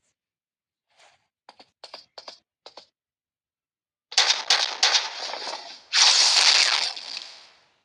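Loud, rapid banging on a door: a few light taps, then a run of hard knocks about four a second, then a second-long burst of continuous rattling that fades away.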